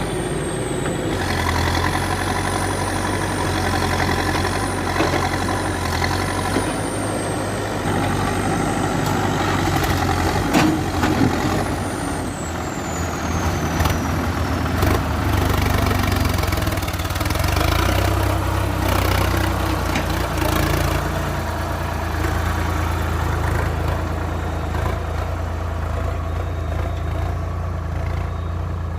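Diesel engines of a backhoe loader and a tractor running steadily while mud is loaded into the trolley. A thin high whine glides in pitch over the first several seconds and again around the middle, and a couple of sharp knocks stand out about halfway through.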